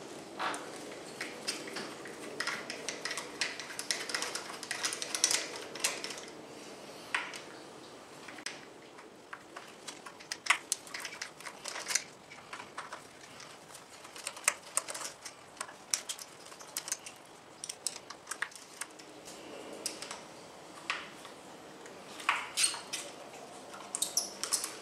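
Irregular small metallic clicks and scrapes of a hand-held Torx bit turning out the screws on the end cap of a Two Brothers M2 motorcycle muffler.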